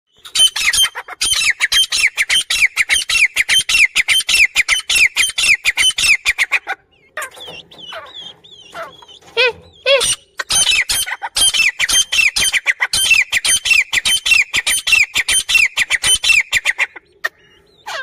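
Female grey francolin calling: long runs of rapid, sharp notes, about five a second, in two long bouts with a few seconds of softer chirps and a single rising call between them.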